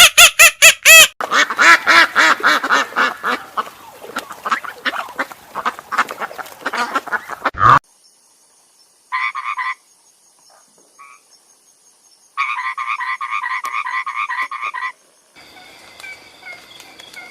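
Frogs croaking: a dense chorus of rapid pulsed calls, then after a sudden cut, short pulsed trills in two bursts. A fainter recording with steady tones starts near the end.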